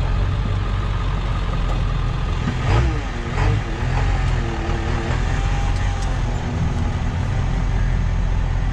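Ford 7.3 L Power Stroke turbodiesel V8 pickup running steadily at low speed, a constant low rumble with road noise. A brief wavering whine rises over it about three seconds in and fades out by about six seconds.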